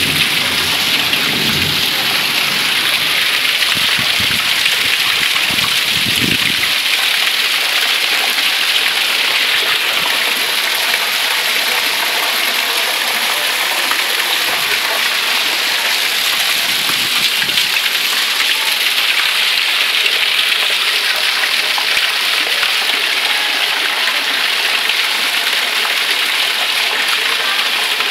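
Heavy rain pouring down on a flooded paved street and rooftops, a loud, steady, dense hiss of drops.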